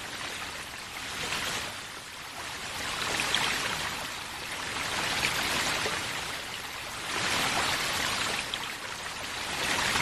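Rushing water noise, like a stream or rain, swelling and easing every two to three seconds, with no music.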